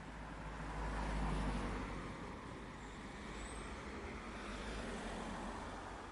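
Distant road traffic: a vehicle's low rumble and tyre noise swells about a second in, then eases off, with a faint bird chirp in the middle.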